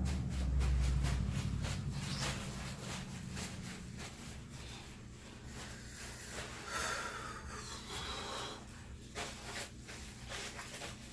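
Close-up handling noise: a low rumble in the first two seconds, then scattered clicks and rustling.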